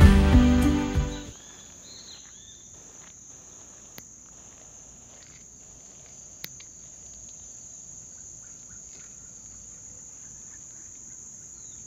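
Background music fading out about a second in, then a steady high-pitched drone of insects in the vegetation, with a few faint chirps and a couple of small clicks.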